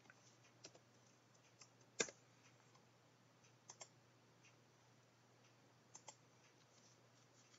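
Faint computer mouse and keyboard clicks: a few scattered single clicks, the sharpest about two seconds in, and quick double clicks near four and six seconds.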